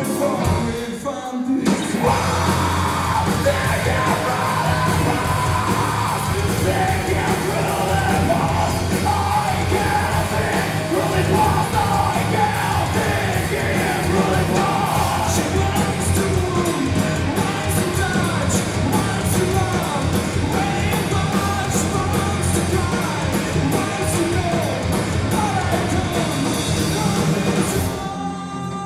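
Live rock band playing: electric guitar, bass guitar and drums with a singer's vocals. The full band crashes back in after a short break about two seconds in, and drops away near the end.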